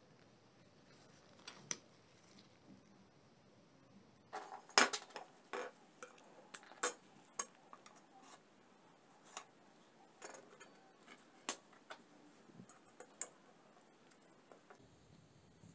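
Scattered sharp clicks and light clinks of small hard objects handled on a workbench: a steel angle piece, a plastic template and a marker pen being set down and moved. The clicks start about four seconds in and come irregularly after that.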